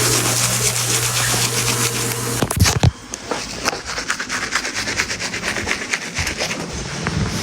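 Toothbrush scrubbing teeth in rapid back-and-forth strokes. A steady low hum cuts off about two and a half seconds in with a brief louder noise, and the quieter scrubbing goes on.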